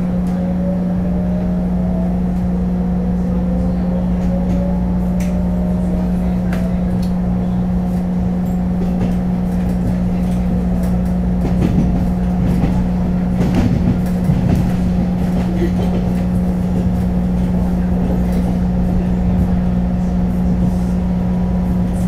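Running sound of a Taiwan Railways EMU500 electric multiple unit heard from inside the car: a steady low hum and rumble, with a faint whine rising in pitch over the first several seconds and occasional light clicks.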